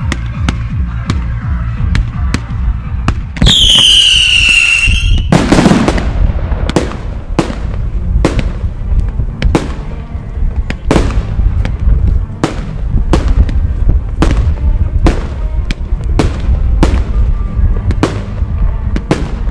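Fireworks display over music with a steady beat of about two a second. About three and a half seconds in, a firework whistle sounds for about a second and a half, falling slightly in pitch, and is followed by a loud burst.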